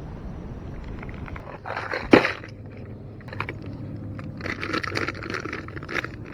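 Wind on the microphone, then a sharp knock about two seconds in, followed by bursts of light rattling and clattering as gear is handled in a kayak.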